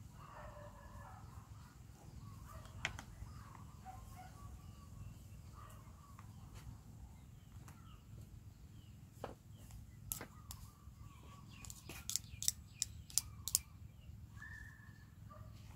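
Hard plastic toys tapping and clicking as a toddler handles them, with a quick run of sharp clicks near the end. Faint bird calls in the background.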